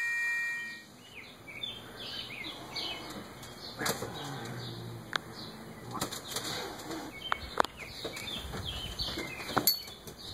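A bell-like ring fades out in the first second. Then comes scattered rustling with a few light knocks as an animal moves about under a plastic tarp, and small birds chirp now and then.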